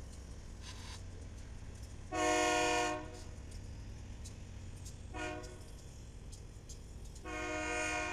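Diesel locomotive air horn sounding three times: a blast of about a second, a short toot, then a longer blast near the end. Under it runs the steady low rumble of BNSF diesel locomotives rolling past.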